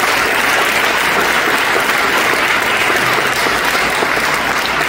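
Audience applauding with steady, dense clapping.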